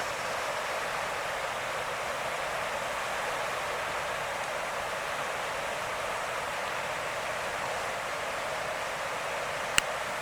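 Steady rushing of water flowing out below the dam into the Smith River, with one sharp click near the end.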